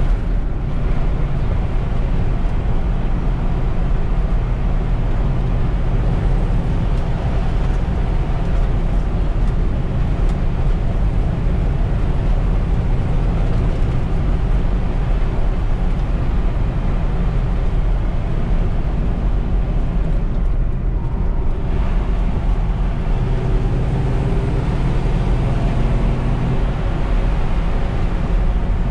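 Ford flathead V8 engine and exhaust of a 1950 Ford F2 pickup running steadily under way, heard from inside the cab with road and wind noise.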